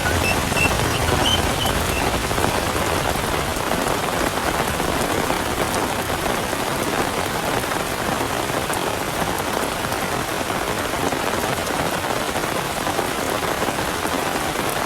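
Steady rain falling and splashing on surfaces, an even dense hiss. A few brief high chirps sound in the first two seconds.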